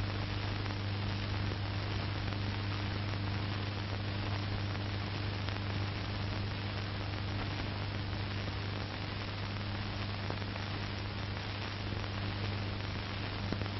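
Steady hiss with a low mains hum underneath: the background noise of the recording, with no other sound.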